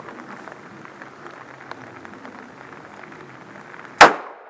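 A single pistol shot about four seconds in, sharp and very loud, after a few seconds of faint background.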